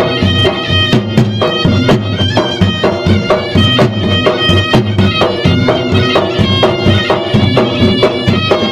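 Traditional Maros gendang adat drums beaten in a fast, dense, continuous rhythm, with a wind instrument holding a steady piping melody over them.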